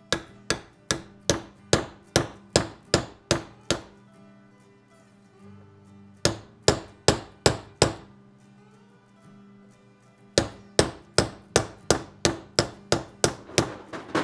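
Steel hammer tapping a seal driver to press a rubber-edged oil seal into a Triumph 650 aluminium transmission case, a tight fit. Three runs of quick, even taps, about two to three a second, with pauses of a couple of seconds between them.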